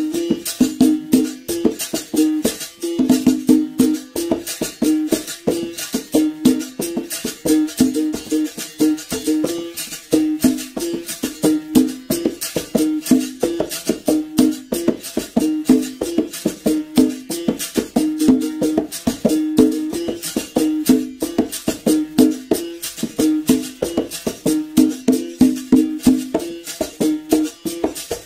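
Berimbau solo: the steel string struck in a quick, steady rhythm, alternating between two notes a step apart, with the shaken rattle of a caxixi.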